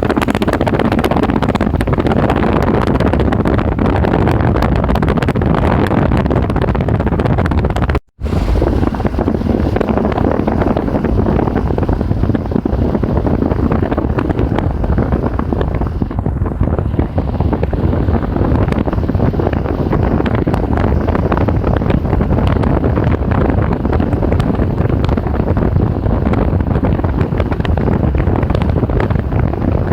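Strong thunderstorm wind buffeting the microphone, loud and steady, with a brief cut about eight seconds in.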